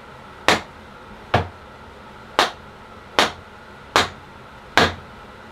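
Six blows of a wooden mallet, roughly one a second, driving an oversized truss rod down into the too-narrow channel of a maple guitar neck. Each blow is a sharp knock over a steady hiss. The forced-in rod acts as a wedge in the truss rod cavity.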